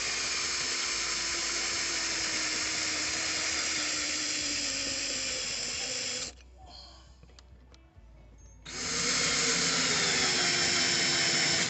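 Ryobi 18V cordless drill boring pilot holes through a metal strap, its motor pitch sagging slowly under load. It stops about six seconds in and starts again some two seconds later, running steadily.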